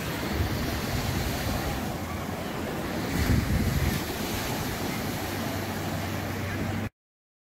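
Sea surf washing onto a pebble beach, with wind on the microphone. A louder wave surge comes about three seconds in, and the sound cuts off abruptly just before the end.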